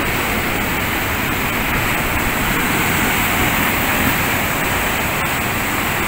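Rough ocean surf breaking over rocks and the wall of a seaside pool: a steady, unbroken roar of waves and churning water.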